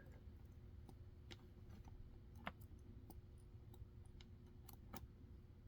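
Faint, scattered small clicks of tweezers and tiny brass lock pins and springs being picked up and set down while a gutted pin-tumbler lock's parts are laid out in order, the clearest click about halfway through.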